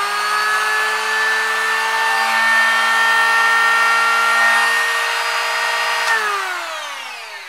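ProStar HHM8204 82 mm electric hand planer running with a steady whine, freshly repaired and running smoothly, 'better than new'. It is still spinning up as the sound begins. About six seconds in it is switched off and winds down, its pitch falling as it fades.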